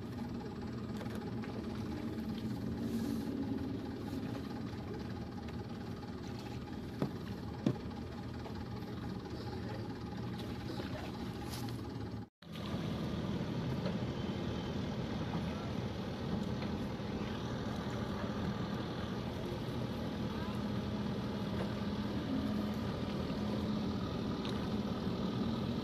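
A small engine idling steadily, with two sharp clicks about seven seconds in.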